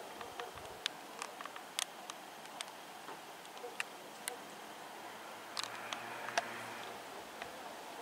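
Irregular sharp clicks and ticks, a dozen or more scattered at uneven intervals, over a faint steady background hiss.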